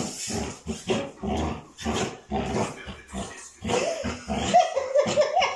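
Dog growling in play while tugging at a cloth, in a run of short, rough growls two or three times a second.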